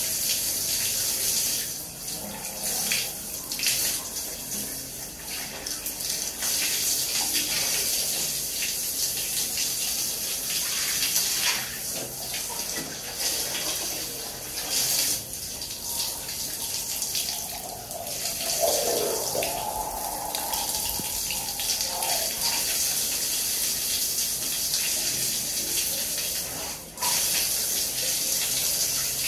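Shower water running steadily, spraying onto a tiled shower floor, with short wet slaps and squelches as feet in soaked socks shift on the wet floor.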